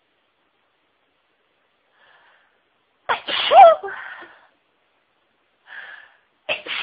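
A person sneezing in a fit: a loud, full sneeze about three seconds in, its voiced cry falling in pitch, then a short breath in and a second sneeze starting near the end.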